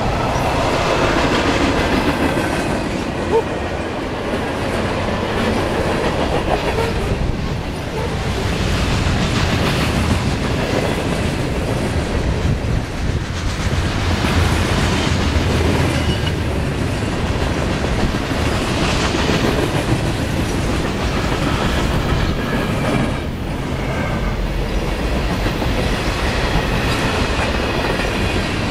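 A freight train rolling past, its wheels clicking over the rail joints over a steady, loud rumble.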